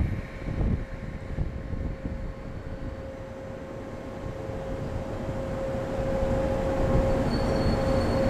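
A train running, a low rumble with a steady hum, getting gradually louder.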